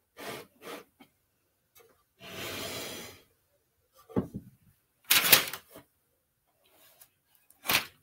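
Boards of a wooden beehive box knocking against each other and the tabletop as the box is handled and turned. A scrape of wood sliding on the table lasts about a second; the loudest knock comes about five seconds in, with another near the end.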